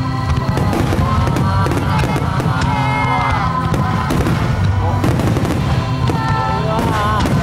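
Fireworks shells bursting in quick succession, many bangs and crackles close together, over music with a sung melody.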